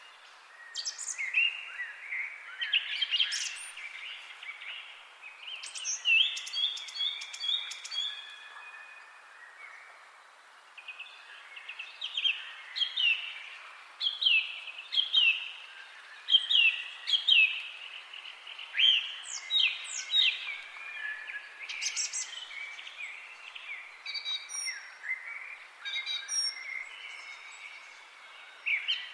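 Songbirds chirping and singing over a steady faint hiss: short downward-sliding chirps repeat throughout, with a rapid trill about seven seconds in and high thin notes near the end.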